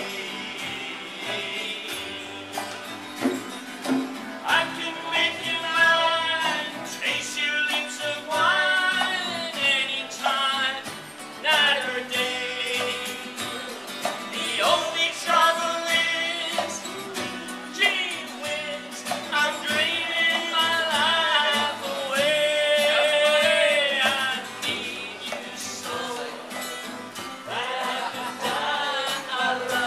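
A small live acoustic band playing, with strummed and plucked acoustic guitars and an upright double bass, and singing over it.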